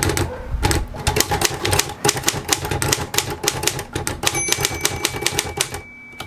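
Keys of a Royal KMM manual typewriter struck in a quick, uneven run of clacks as a line is typed onto a small card, with the carriage margin bell ringing once about four seconds in.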